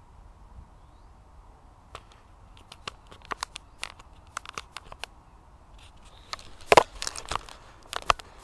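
Large Brussels sprout leaves rustling and crackling as they brush against the camera. It is a run of sharp crackles starting about two seconds in, with the loudest a little before the end.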